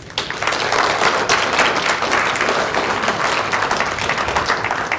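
Audience applauding, many people clapping at once, beginning to thin out near the end.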